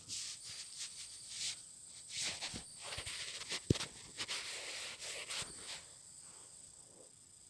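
Rustling and handling noise close to the microphone, with scattered soft clicks and one sharp click a little past halfway, dying down near the end.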